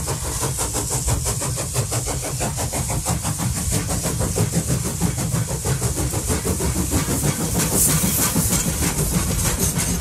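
A train running, with a fast, even beat over a steady low rumble and hiss.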